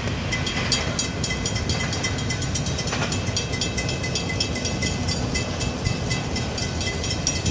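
Florida East Coast freight train rolling away over the crossing: a steady rumble with many short clicks from steel wheels on the rails, and a thin high ringing tone held throughout.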